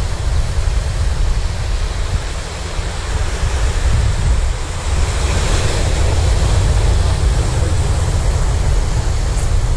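Sea surf breaking and washing over breakwater rocks in a steady hiss, under a heavy low rumble of wind buffeting the microphone.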